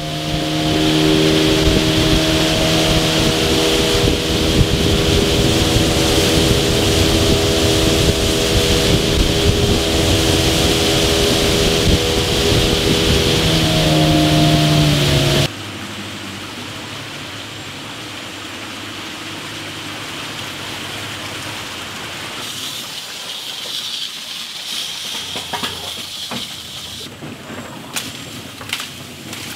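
A boat engine running steadily at cruising speed, with water and wind hiss, dipping slightly in pitch near the end before cutting off suddenly about halfway through. After that, a much quieter hiss with scattered clicks and knocks, growing more frequent near the end.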